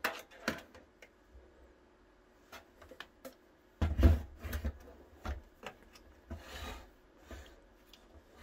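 A Lavolta 30 V 5 A bench power supply and a multimeter being handled on a desk: scattered light clicks and knocks, a low thud about four seconds in, then soft scraping as the power supply's case is slid and turned on the desktop.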